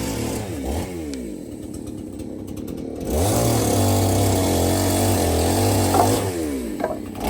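Chainsaw engine revving up and running at speed, dropping back to idle about a second in, then revving up again about three seconds in and holding there for about three seconds before easing off near the end.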